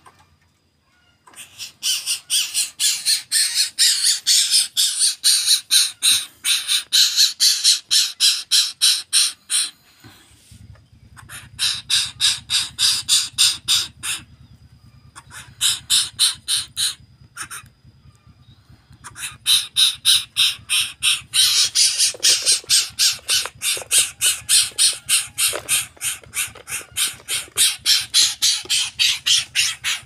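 Greater coucal giving long runs of harsh, rasping calls, about five a second, broken by short pauses about ten, fourteen and eighteen seconds in.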